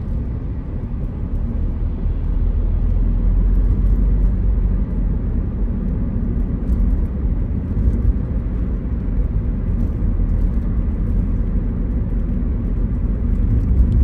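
Steady low rumble of road and engine noise heard inside a car's cabin while it drives along at a constant speed.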